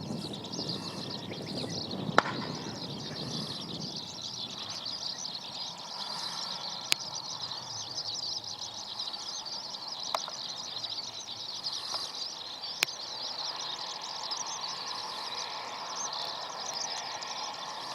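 Outdoor ambience of many birds chirping steadily, with a low aircraft rumble fading away in the first few seconds and a few sharp clicks.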